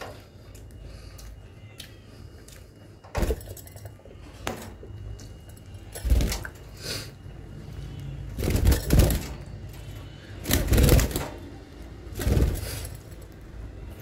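Metal wire bird cage rattling and clattering in about five separate bursts as a hand reaches inside to catch a bird.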